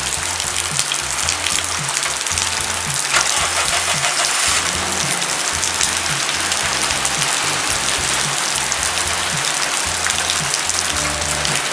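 Background music with a stepped bass line, over the steady hiss of heavy rain.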